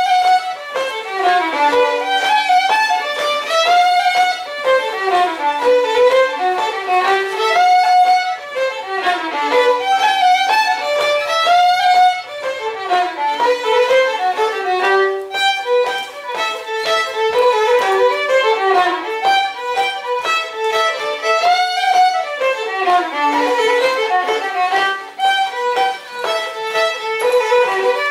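Instrumental folk dance tune on a fiddle: a quick running melody that repeats its phrases, many of them falling runs, with hardly any bass beneath.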